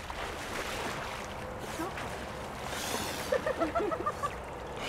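Water splashing as a bather surfaces and stands up in a cold river, over the steady rush of the current. A little past three seconds in comes a quick string of short, pitched gasping yelps from the cold.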